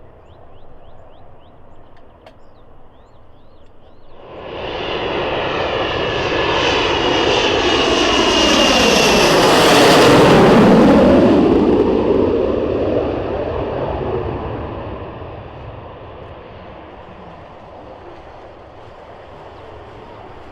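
A Panavia Tornado IDS jet's twin RB199 turbofans passing by. The jet noise comes in suddenly about four seconds in and swells to a peak in the middle. The pitch of its whine falls as it passes, then it fades to a steady, quieter rumble.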